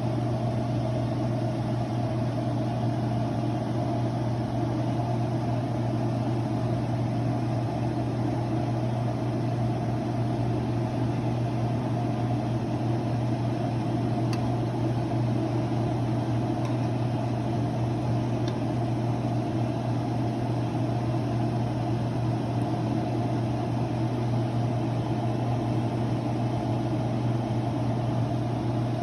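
A steady low mechanical hum, like a small motor or fan running, unchanging throughout.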